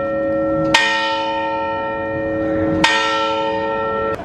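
Church tower bell tolling: two strokes about two seconds apart, each ringing on into the next. The ringing cuts off suddenly near the end.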